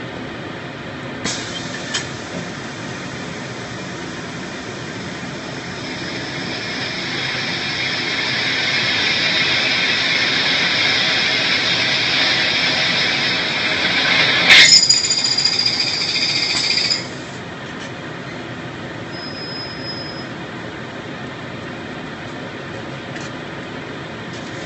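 CNC plasma cutting and drilling machine at work over a steady machine noise: a high squealing hiss builds up over about ten seconds, then a sharp crack, followed by a high ringing tone that cuts off suddenly about two seconds later.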